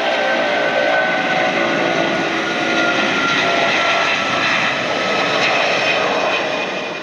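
Airbus A330 twin-jet taking off on a wet runway at take-off thrust: a loud, steady jet roar with faint engine tones in it, as the aircraft lifts off and climbs. The sound begins to fade right at the end.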